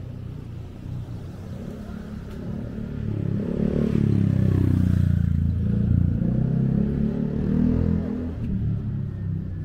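A motor scooter and a car drive slowly past at close range, their engines rising to the loudest point about four to six seconds in and then fading.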